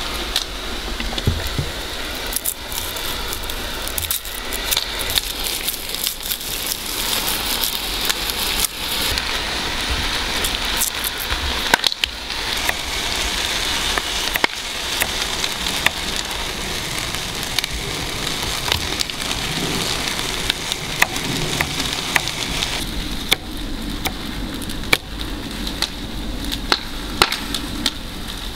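A wood fire crackling over a steady hiss, with scattered knocks of a knife on a wooden cutting board as garlic is chopped.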